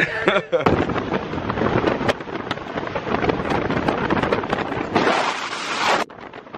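Wind buffeting the microphone of an open-top car moving at speed: a dense rushing noise full of crackles. A louder rush near the end cuts off suddenly.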